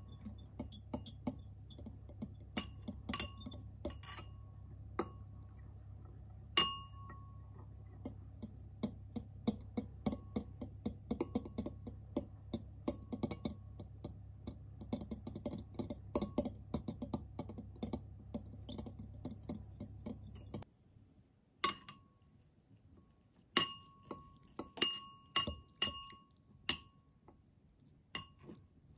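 Metal fork stirring sauce in a glass bowl, its tines tapping and scraping the glass in a quick run of light clinks, with now and then a louder ringing clink. A low steady hum underneath stops suddenly about two-thirds through, and after that the clinks come fewer and sharper.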